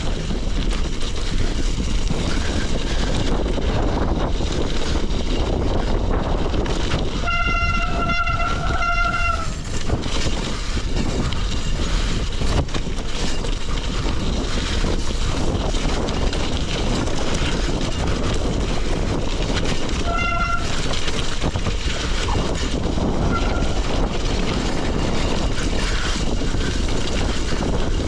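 Gravel bike rolling fast down a rough dirt track: steady wind rush on the microphone over knobby tyres crunching on gravel and the bike rattling. The brakes squeal briefly twice, for about two seconds about seven seconds in and again for a moment about twenty seconds in.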